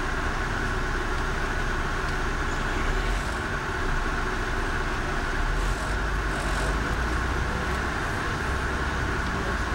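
Steady engine and road noise heard from inside a slowly moving vehicle, with a low rumble that swells briefly a couple of times.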